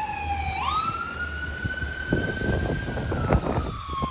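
An emergency vehicle's siren wailing: the pitch slides down, sweeps quickly back up about half a second in, then slowly falls again. A low rumble runs underneath, with a spell of knocks and rustles near the middle.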